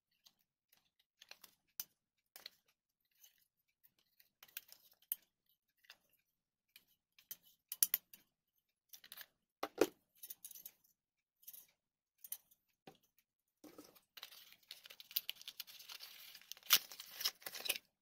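Computer-part packaging being handled and unboxed: scattered light clicks and taps, then a few seconds of steady crinkling rustle near the end.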